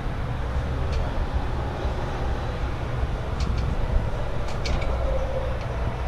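Heavy diesel engine of construction equipment running at a steady idle, a low rumble, with a few light clicks and taps about a second in and again between three and five seconds in.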